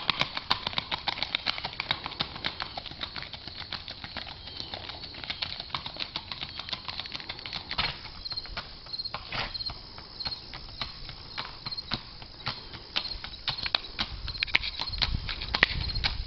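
Hoofbeats of a Tennessee Walking Horse gelding: a quick, continuous run of sharp clip-clop strikes, several a second.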